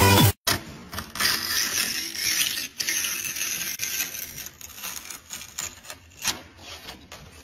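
Metal hand plane being pushed along the edge of a dark wood veneer panel, trimming it: a series of uneven rubbing, scraping strokes of steel on wood.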